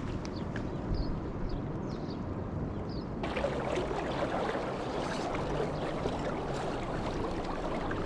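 Running river water with wind on the microphone, and a few short high chirps in the first three seconds. About three seconds in the sound changes abruptly to a fuller, louder rush of water.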